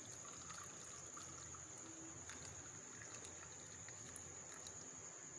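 Cooled tea poured from a jug into a glass over ice cubes: a faint steady trickle of liquid, against a faint steady high-pitched whine.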